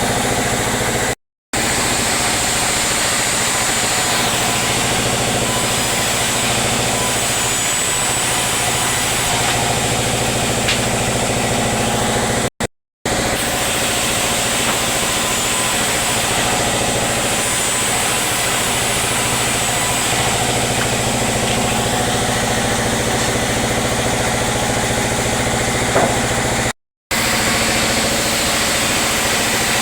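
Sawmill machinery running steadily: a constant engine-like drone with several steady tones, broken by three brief drops to silence.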